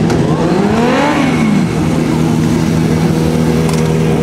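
A sport motorcycle engine revving up for about a second and then dropping back, over the steady running of other engines.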